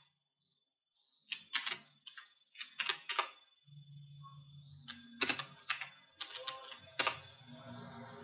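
Computer keyboard being typed on: two runs of quick keystrokes, the first starting about a second in and the second after a short pause in the middle.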